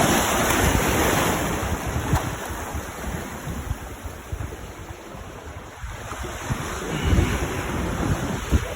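Surf breaking and washing up the beach, with wind gusting across the microphone. A wave's wash is loudest at the start and fades off, and another surges in about seven seconds in.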